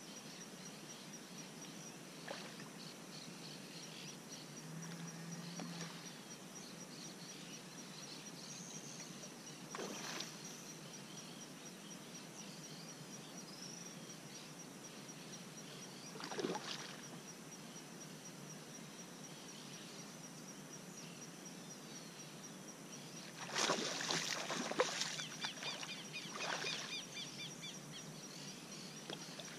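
Water splashing as a hooked trahira (tarucha) thrashes at the surface. The splashes come now and then, with the loudest cluster about 24 seconds in and another soon after. A faint, fast high ticking runs underneath throughout.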